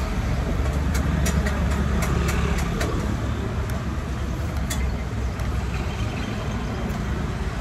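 Street traffic: a motor vehicle engine running steadily close by as a low rumble, with scattered light clicks and taps over it.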